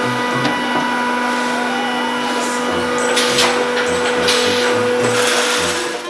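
Jigsaw factory machinery running: a steady electric hum with bursts of rattling in the second half.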